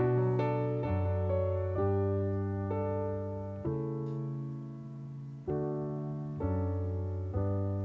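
Background piano music: slow, sustained chords, with a new chord or note struck every second or so.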